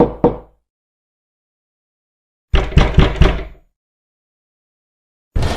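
Knocking on a wooden door: two quick knocks, then after a pause a run of about four quick knocks, and another run starting near the end.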